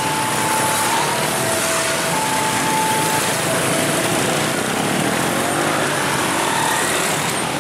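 Dense motor-scooter and car traffic running across a railway level crossing, a steady engine drone. Over it the crossing's warning alarm sounds an alternating two-note tone, about a second per note, fading out after about four seconds with one faint note near the end.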